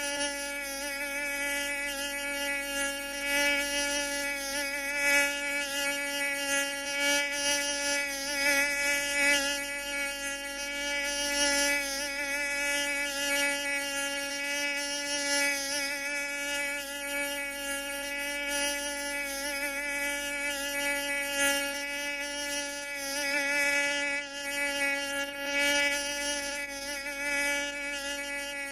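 Mosquito buzzing in flight: a continuous thin whine whose pitch wavers slightly and whose loudness swells and fades as it moves about.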